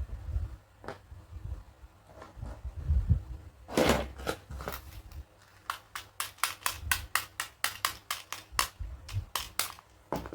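Plastic pieces of a toy dentist kit being handled: a short rustle about four seconds in, then a rapid run of sharp clicks, about four or five a second, through the second half.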